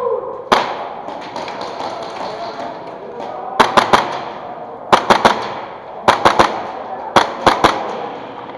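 Airsoft pistol shots with a hall echo: a single shot about half a second in, then quick strings of three or four shots about every second and a bit.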